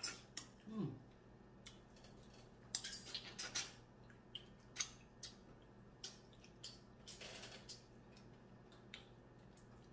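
Faint scattered clicks and short crackles of blue crab shell being broken and picked apart by hand while eating, with a few brief eating sounds.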